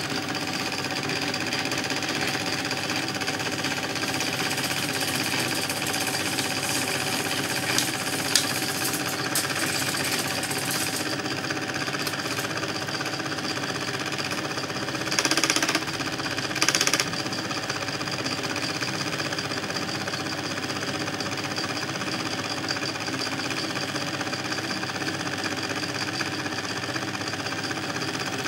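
Film projector running, a steady mechanical rattle from its film-advance mechanism, with two short louder bursts of noise about halfway through.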